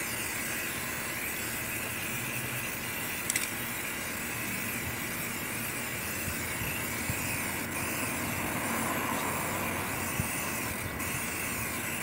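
Aerosol spray can hissing as paint is sprayed along the rim of a truck wheel, cutting out briefly a couple of times, over a steady low hum.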